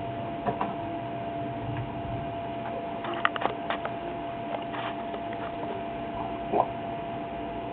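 A steady hum and hiss with scattered light taps and clicks: a small cluster about three seconds in and a louder single tap near the end.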